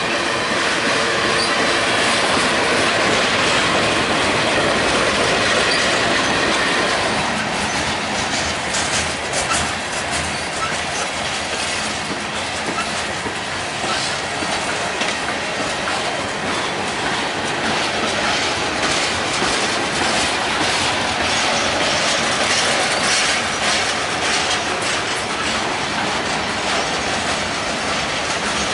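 Union Pacific manifest freight cars (tank cars, steel coil cars, lumber flatcars) rolling past close by, steel wheels clattering over the rail joints in an uneven stream of clicks. A thin steady whine rides over the rumble for the first several seconds.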